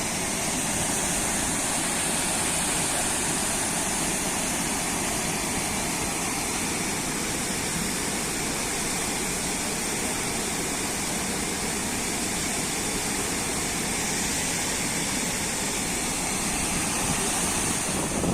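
Steady rush of a waterfall: falling water, unbroken throughout.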